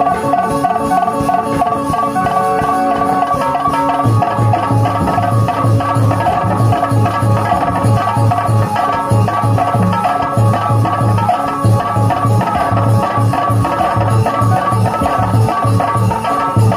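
Live folk stage band music: a clarinet playing a melody, with a hand drum coming in about four seconds in and keeping a steady beat.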